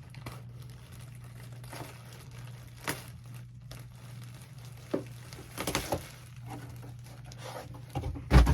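Plastic packaging crinkling and rustling in short, scattered handlings as a jersey is unwrapped, with a loud low thump near the end.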